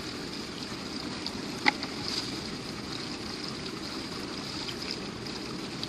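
Steady outdoor noise of moving water, with a faint steady high-pitched hiss over it and a single short sharp tap about one and a half seconds in.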